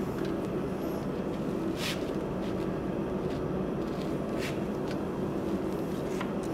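A blacksmith's forge running as a steady noise with a low hum, with a few short clicks from the twisting wrench working the hot bar in the vise.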